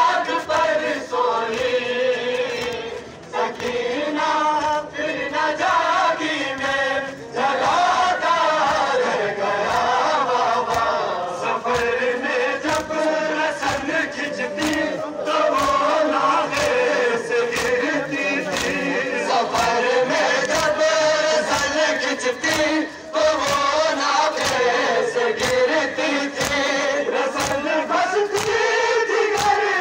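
Large crowd of men singing a mourning chant (noha) together, with regular sharp slaps of chest-beating (matam) keeping time.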